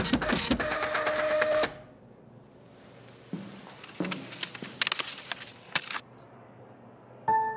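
Office printer running, a steady whir with rapid mechanical clicks for the first two seconds or so. Then there are scattered clicks and paper handling noise as a printed sheet is taken from the output tray.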